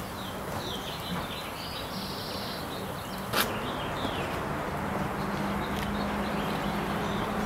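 Outdoor ambience: a steady background hiss with a low hum, a few short bird chirps, and one sharp click about three and a half seconds in.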